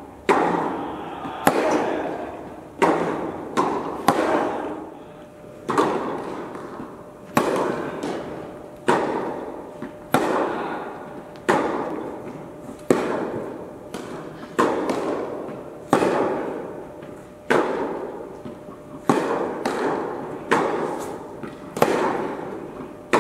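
Tennis rally: sharp pops of racket strings hitting the ball and the ball bouncing, one every half second to second and a half, each ringing out with a long echo in an indoor tennis hall.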